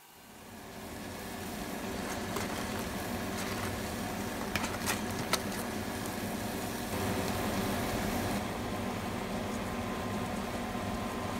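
Steady kitchen hum, like a fan running, fading in over the first two seconds. A few sharp clicks of a metal spoon against the pan come about five seconds in, as seasoning sauce is spooned over tofu.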